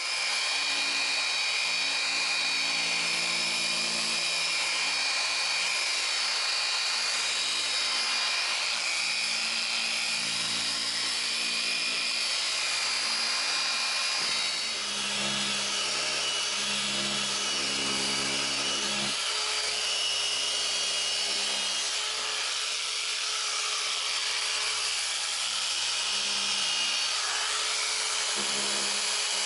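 Griot's Garage Boss G15 dual-action polisher running steadily, its yellow polishing pad worked lightly over a gloss-black injection-moulded plastic decklid panel in a final finishing pass, with a brief drop in level about halfway through.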